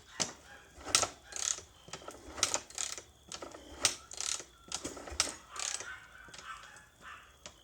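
KTM EXC 525 engine being cranked over without firing: a string of irregular mechanical clacks and ratcheting knocks from the starting mechanism, and no engine running. The battery is too weak to turn it over properly.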